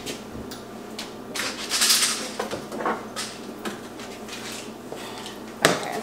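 A kitchen cabinet door opening and items being taken off the shelf: scattered knocks and clatters, with a louder knock near the end.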